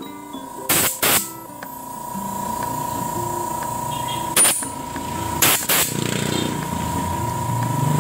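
Short blasts of compressed air from a blow gun, cleaning out the jets and passages of a motorcycle carburetor: five quick puffs, a pair about a second in, one near the middle and another pair just after, over a steady hum.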